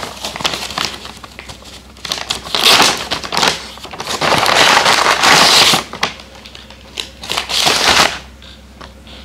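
Brown paper takeaway bag rustling and crinkling as it is unfolded and opened by hand, in several bursts, the longest about two seconds.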